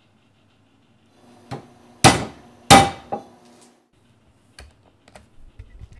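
Hammer blows on a socket set on a raw water pump's bearing, driving the bearing out of its housing clamped in a vise: a light tap, then two hard metal blows about two-thirds of a second apart that ring briefly, then a lighter tap and a few small knocks.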